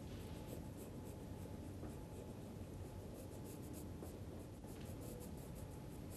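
Quantel Paintbox stylus scratching faintly across its graphics tablet in short painting strokes, over a steady low equipment hum.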